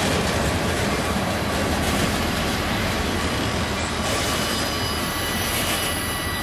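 The last cars of a loaded freight train roll past on steel wheels and rail in a steady rumble. The noise eases only slightly as the end of the train moves away, and thin high ringing tones from the rails and wheels come through more plainly near the end.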